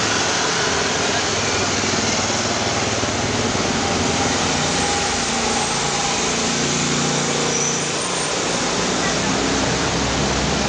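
Street traffic: motor scooters, cars and city buses running past over a steady noisy hiss, with people's voices in the background. A deeper engine hum swells about six and a half seconds in and fades by about eight and a half.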